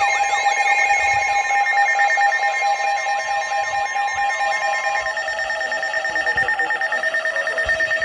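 Several weather alert radios sounding their alarms together for a severe thunderstorm warning: a repeating up-and-down siren sweep, about two a second, layered over steady and beeping alert tones. About five seconds in, the sweep and one steady tone stop, leaving a steady tone with pulsing beeps.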